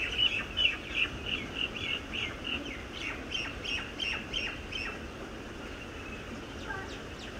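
Young Muscovy ducks peeping: a quick run of short, high chirps at about three a second that fades away about five seconds in.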